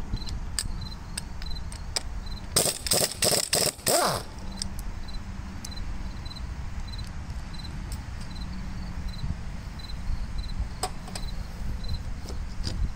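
A cricket chirping steadily in short high pulses, about three a second. About three seconds in there is a quick run of loud knocks and clanks as metal tractor parts are handled, and a few lighter clicks near the end.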